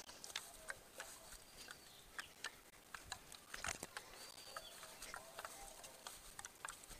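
Faint, irregular rustling and soft steps: feet walking along a narrow muddy path through a rice paddy, with the rice stalks brushing past.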